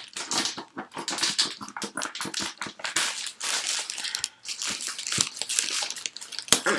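Cardboard shipping box and its packing being handled and pulled open: a dense run of irregular crinkling and rustling.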